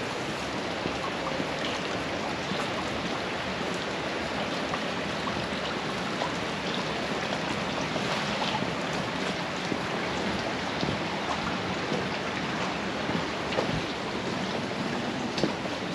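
Steady rain falling, an even hiss with scattered small drop ticks and a few sharper taps near the end.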